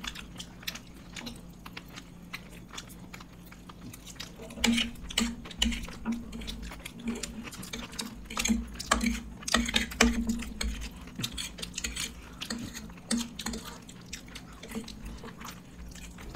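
People eating: chewing and mouth noises with irregular clicks and clatter of plates and utensils, busiest about five seconds in and again around ten seconds. A steady low hum runs underneath.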